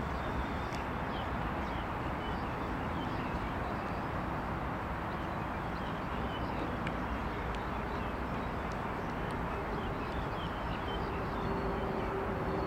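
Steady outdoor background noise with a low rumble and scattered faint chirps; a faint steady hum comes in about eleven seconds in.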